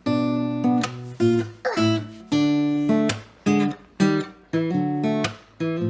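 Acoustic guitar strumming chords in a steady rhythm, a new strum about every half second, as the introduction to a song.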